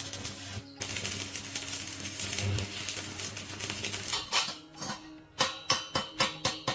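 A motor-driven tool runs with a rasping noise over a steady hum and stops about four seconds in. Then come rapid, regular sharp taps, about four a second.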